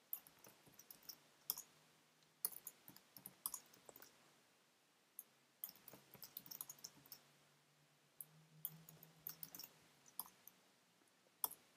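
Faint, irregular clicking of computer keys and mouse buttons, in short clusters with pauses between.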